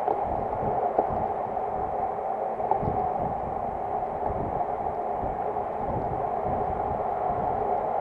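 Wind rushing over the microphone of a bicycle-mounted action camera, with low buffeting gusts, over the steady rolling noise of road-bike tyres on asphalt in a group of riders. A couple of small knocks stand out, about a second in and again near the three-second mark.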